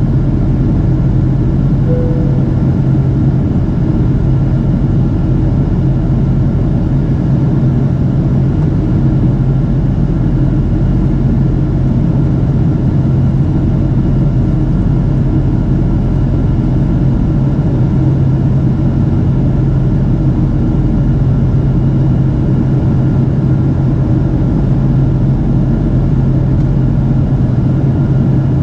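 Steady cabin noise inside a Boeing 777-200ER: a constant rush with a strong low hum that does not change. A brief tone sounds once about two seconds in.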